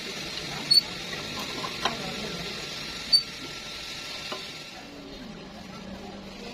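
Stick-welding arc crackling steadily, with a few sharp pops, dying down about five seconds in.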